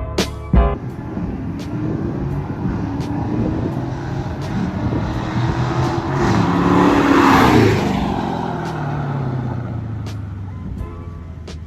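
Dodge Challenger Scat Pack's 6.4-litre HEMI V8 on a cold start. It runs with a loud burst right at the start, then engine speed climbs slowly to a peak about seven seconds in and falls away again.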